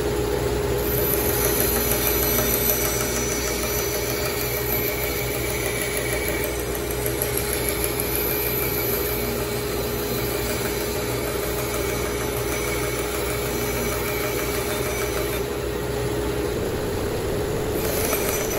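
Bandsaw running with a steady hum as a small piece of wood is fed through its blade.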